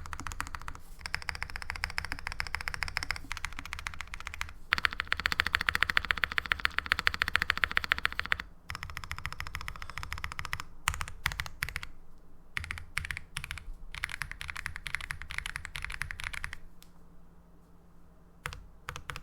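Custom 65% mechanical keyboard with lubed Gazzew Boba U4T tactile switches on an FR4 plate in a gasket-mounted case, with GMK keycaps, being typed on in quick runs of keystrokes. The fastest, loudest run comes near the middle. Near the end it slows to a few separate key presses.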